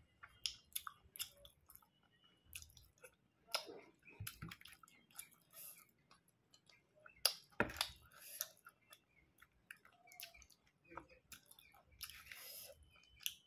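Close-up chewing of dried pork: irregular wet mouth clicks and small crunches, with one sharper knock about seven and a half seconds in.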